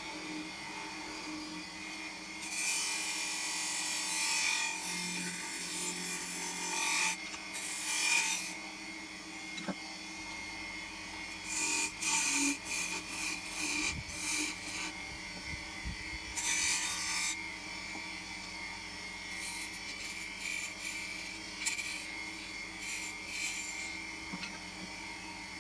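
Wood lathe motor running steadily, with repeated irregular bursts of a hand tool scraping against the spinning wooden piece of a doorknob as it is shaped.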